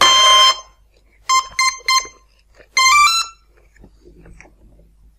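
Brushless motor speed controller (ESC) powering up as the LiPo battery is plugged in, beeping through the motor: one long beep, then three short beeps, then a rising three-note tune as it arms. Three beeps are the usual cell count for a 3S battery.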